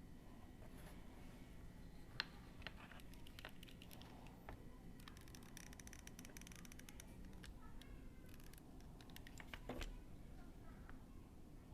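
Faint, scattered clicks and taps as small craft parts such as a washer and a stick are handled on a table. There is a sharper click about two seconds in, a run of quick ticks in the middle, and a soft thump near the end.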